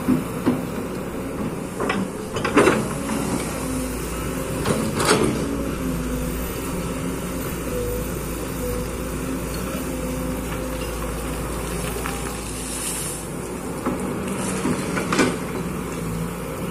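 Kobelco excavator's diesel engine and hydraulics running steadily, with the pitch shifting slightly as it works, and a few sharp knocks and clunks, most of them in the first five seconds and one more near the end.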